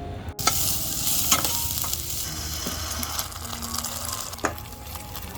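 Food sizzling in a hot pan as it is stirred, with a couple of sharp clinks of the utensil against the pan. The sizzle starts abruptly about half a second in.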